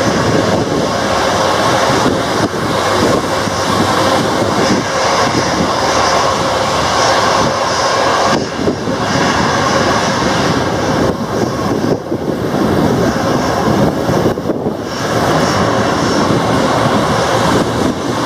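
Airbus A320's IAE V2500 jet engines running at low taxi power as the airliner turns onto the runway, a steady whine over a broad rushing noise of heavy rain.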